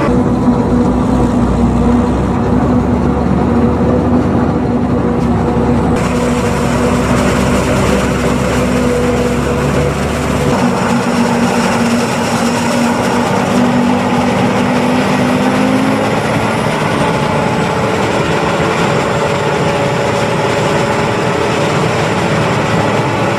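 John Deere 7500 self-propelled forage harvester chopping standing corn for silage, its engine and cutterhead running steadily under load, with a tractor running alongside.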